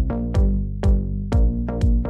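Instrumental electronic background music with a steady beat of about two strikes a second over sustained notes.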